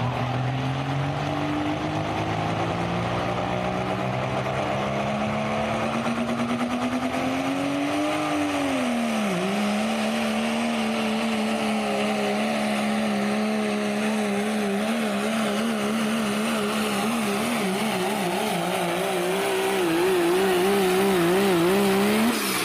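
Diesel pickup truck engine at full throttle under load on a truck pull. Its pitch climbs steadily for about eight seconds, dips sharply, then holds high and wavering before breaking off near the end.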